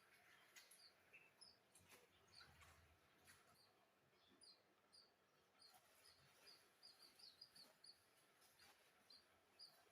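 Faint, short, high bird chirps repeating over near silence, coming thickest in the middle, with a few faint clicks.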